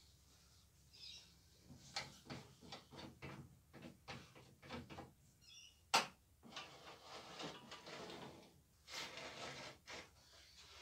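Light workshop handling sounds: an irregular string of knocks and clicks with some scraping between them, and one sharper knock about six seconds in.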